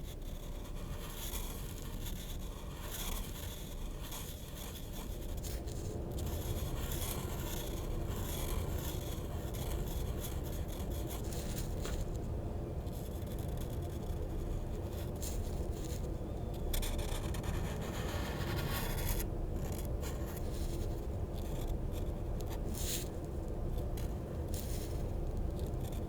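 Drawing tool scribbling and scratching across paper in quick, irregular strokes, with a couple of brief pauses, over a steady low background hum.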